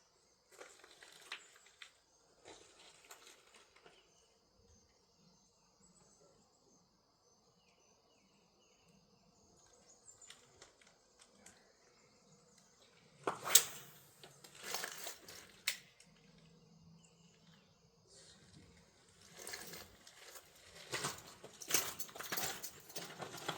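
A faint, steady high insect drone, broken twice by close rustling and clattering handling noise, the loudest a sharp knock about thirteen seconds in.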